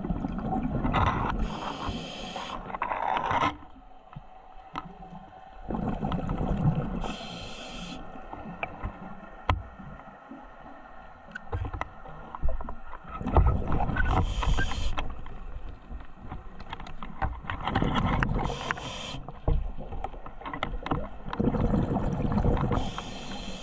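Scuba diver breathing underwater through a regulator: five breaths, each a rush of hiss and exhaust bubbles, about every four to five seconds. Scattered small clicks run between the breaths.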